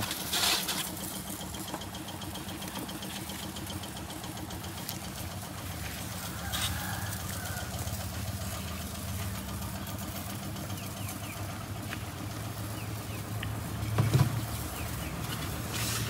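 An engine idling steadily, a low even hum. There is a short noisy burst just after the start and a thump about fourteen seconds in.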